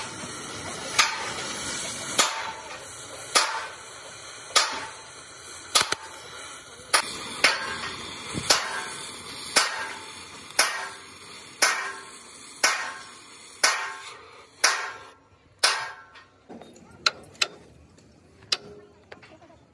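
Gas cutting torch hissing as it cuts a steel truck chassis frame, with hammer blows on the steel about once a second, each ringing briefly. The torch hiss stops about three quarters of the way through, and a few lighter taps follow.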